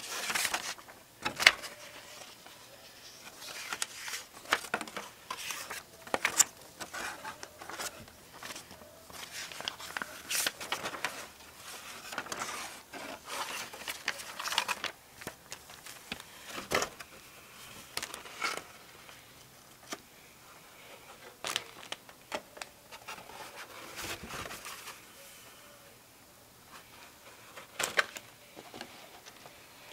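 Model kit packaging being handled: plastic bags crinkling and paper rustling as the instruction pages are flipped, with scattered sharp clicks and taps at irregular moments.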